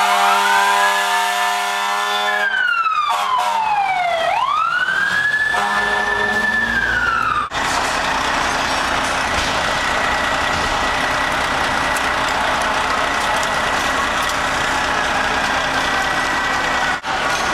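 Fire engine's mechanical siren winding down and back up in long wails, over a deep steady horn blast for the first couple of seconds. After about seven and a half seconds it cuts to a steady loud rumble and hiss of the engine running.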